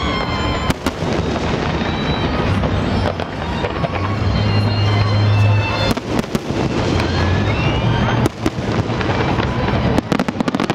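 Fireworks display: a continuous din of bursting aerial shells and crackle, with a few whistles rising in pitch, and a rapid run of sharp cracks near the end.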